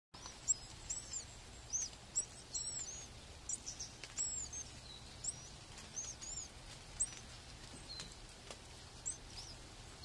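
Small birds chirping in quick, high-pitched notes, thick for the first four seconds or so, then sparser.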